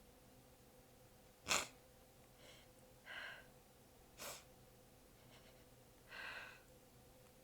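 A woman's stifled sneeze, a sharp burst about a second and a half in, then a breathy gasp, a second short held-back sneeze, and another gasp near the end as the next sneeze builds. The sneezes are bitten back from exhaustion and sore abs.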